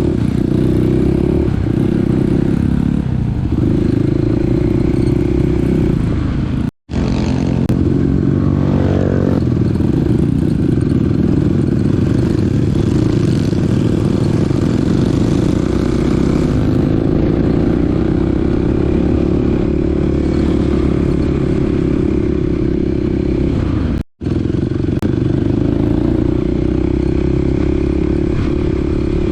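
Small dirt bike engine running steadily while being ridden, with some clatter from the bike. The sound cuts out completely twice, briefly, about 7 seconds and 24 seconds in.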